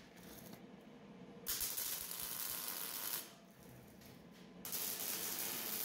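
Electric arc welding on a steel trailer frame: two short weld runs, each a steady hiss lasting about a second and a half, with a pause of about a second and a half between them.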